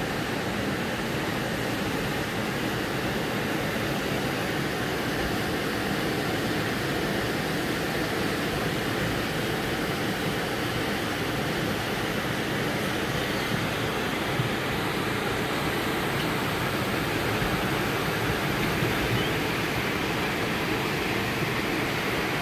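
Steady rush of floodwater streaming through a flooded town street, an unbroken wash of noise.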